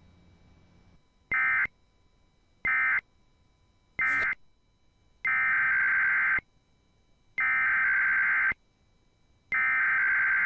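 Emergency Alert System SAME data bursts, a harsh buzzing warble. First come three short end-of-message bursts about a second apart. Then come three longer header bursts of about a second each, opening the next alert.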